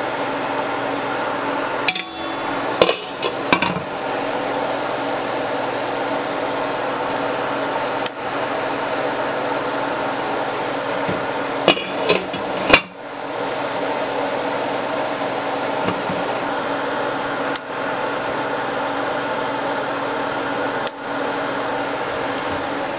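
Glass lid clinking and tapping against a metal pot of simmering vegetable-and-meat broth, over a steady kitchen hum. There are scattered single taps and a quick cluster of clinks about twelve seconds in, when the lid is moved.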